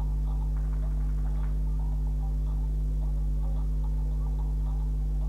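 Steady low electrical hum, a mains-hum buzz made of a few constant tones, with faint background noise and no other clear event.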